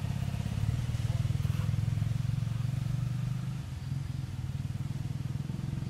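A small engine running steadily with a low hum, easing off slightly a little before four seconds in.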